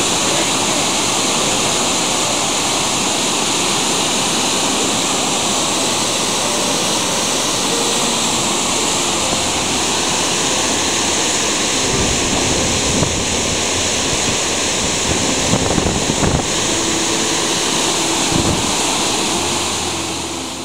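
Steady rushing outdoor noise, with low gusts of wind buffeting the microphone several times in the second half.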